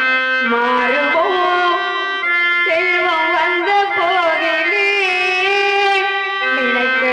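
Harmonium playing a melody in held notes that step from one pitch to the next, with hand drums accompanying.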